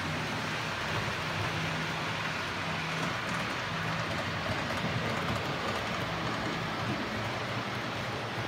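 OO gauge model trains running on DC track with no sound fitted: a steady whirr of the locomotive motors with the hiss and rumble of wheels rolling on the rails.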